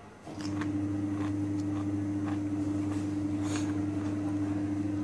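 A steady low hum starts just after the beginning and cuts off abruptly near the end. It holds one even pitch the whole time, with scattered crisp clicks of someone chewing raw onion over it.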